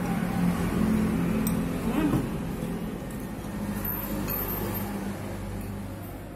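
A motor vehicle engine running steadily and slowly fading away, with a few light clinks of a spoon against a bowl.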